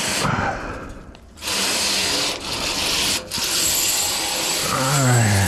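Chimney sweep's brush on rods scraping up and down inside a metal chimney flue, three long rasping strokes, scouring off built-up soot.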